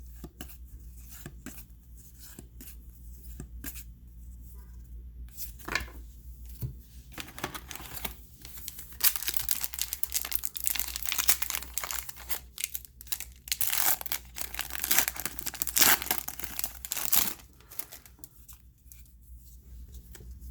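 A trading-card pack wrapper being torn open and crinkled, with cards handled. The crinkling and tearing is densest from about nine seconds in until about seventeen seconds in, with lighter rustling and small clicks before and after.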